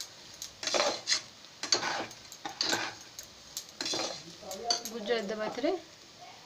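Metal spatula scraping and stirring rice, carrots and peas against the bottom of an aluminium pressure cooker to mix in turmeric and salt, about one stroke a second. A short voice-like sound about five seconds in.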